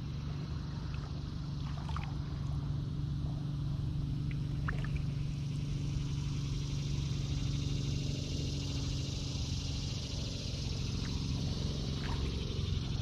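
Kayak paddling on calm water: a few light drips and trickles from the paddle over a steady low hum.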